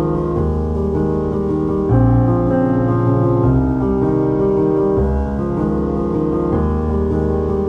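Background piano music with sustained chords that change every second or so.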